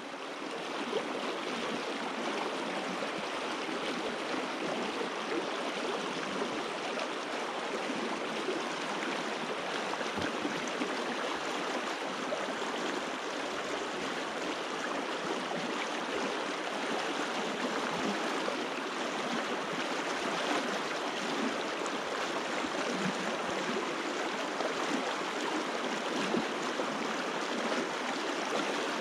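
A stream running steadily, its water rushing and gurgling without letting up.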